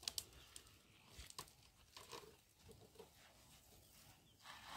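Near silence: faint bush ambience, with a few soft clicks early on and brief faint calls in the middle.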